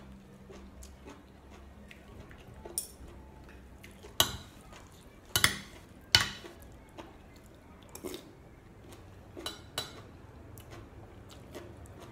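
Metal fork and spoon clinking and scraping against a ceramic plate as food is stirred and scooped: scattered sharp clinks, the three loudest about four to six seconds in.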